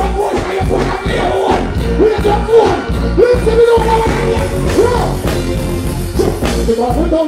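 Live reggae-dancehall music through a concert sound system: a voice singing a melody with sliding notes over a heavy bass line and steady drum beat.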